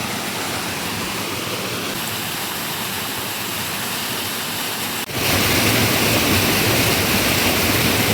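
Waterfall rushing steadily. About five seconds in, the sound cuts suddenly to a louder, fuller rush of falling water.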